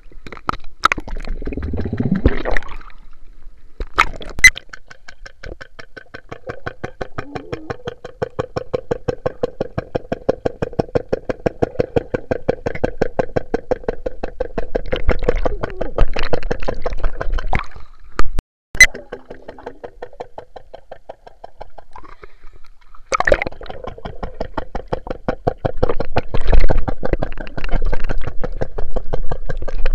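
Suction pool cleaner heard underwater: a rapid, even clicking, several beats a second, over a steady hum. The clicking breaks off a little past the middle and resumes near the end. Water splashing in the first few seconds.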